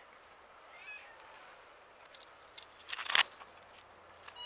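A cat meows faintly about a second in, then a short cluster of loud rustling, crunching noise comes about three seconds in.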